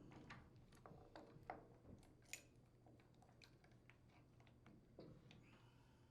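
Faint, irregular metal clicks and scrapes of a small gear puller prying a push cap forward on a chipper shredder's wheel axle, over a low steady hum.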